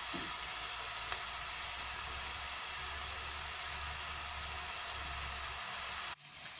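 Diced onions sizzling in oil in a stainless steel pot, a steady even hiss, with a light tap or two of a wooden spoon near the start. The sizzle cuts off suddenly near the end.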